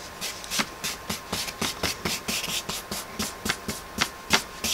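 Wide flat paintbrush stroking and dabbing acrylic paint onto a foam board, in a quick, even run of short brushing strokes, about four a second.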